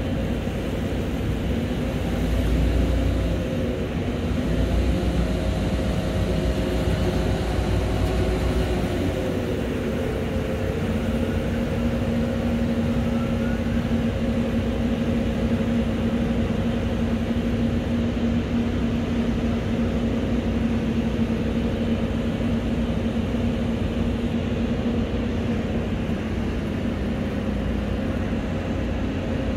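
Boat engine running with a steady drone; its tone slides down a little about nine seconds in, then holds steady.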